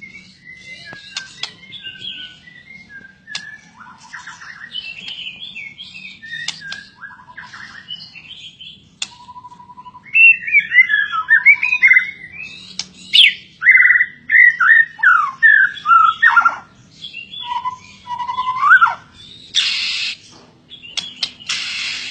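A songbird singing a varied song: soft twittering and short whistled notes at first, then from about halfway a loud run of quick descending whistled notes, followed near the end by two short harsh, rasping bursts.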